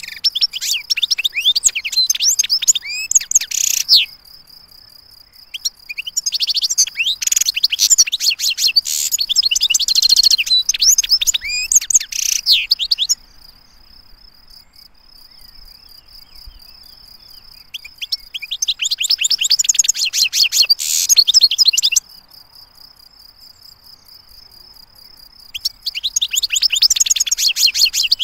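European goldfinch singing in four bouts of rapid, high, twittering song of several seconds each. A faint steady high trill carries on in the pauses between bouts.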